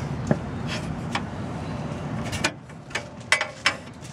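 Light knocks and clicks of PC case parts being handled and set down, several scattered strokes, over an even background noise that drops about two and a half seconds in.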